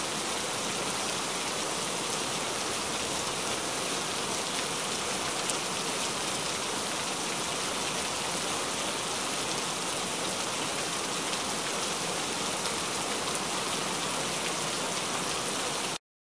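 Heavy rain falling steadily, a dense even hiss with no let-up, that cuts off abruptly near the end.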